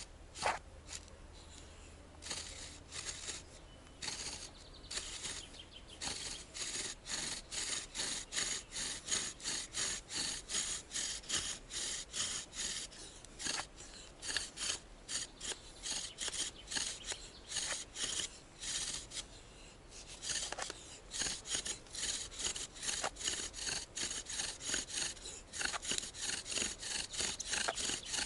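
Bow drill being worked to raise an ember by friction: a wooden spindle turned back and forth in a wooden fireboard, rubbing with each push and pull of the bow. The strokes come in a steady rhythm of about two a second, with a short pause about two-thirds of the way through.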